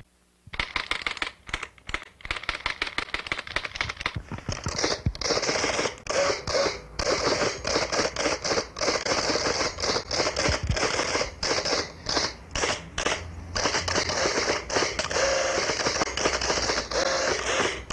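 Dense, irregular crackling and clicking over a steady hiss, starting about half a second in and going on without a break.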